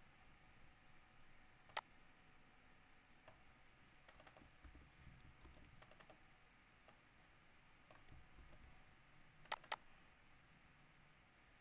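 Faint computer keyboard and mouse clicks, a few scattered strokes, with two sharp clicks in quick succession near the end.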